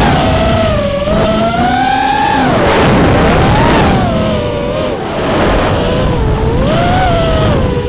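Four brushless motors (T-Motor F40 III 2306 2750KV) of a 5-inch FPV racing quad whining, the pitch rising and falling with throttle as it turns, over heavy wind rumble on the onboard microphone.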